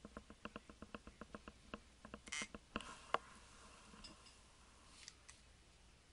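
Faint, quick light taps, about five a second for two seconds, as soil is knocked from a metal spoon through a paper funnel into a permeameter cell. Then a short rustle of paper and two sharper clicks.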